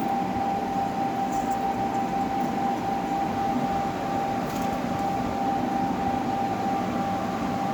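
High-power electric fishing inverter running under load: a steady whining tone over a constant electrical buzz, with no change in pitch.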